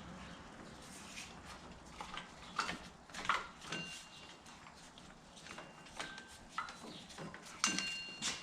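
Hand work on an engine's accessory drive: scattered knocks, rubbing and light clicks as the serpentine belt is worked off the pulleys. There are two ringing metal clinks from a tool, about halfway through and near the end.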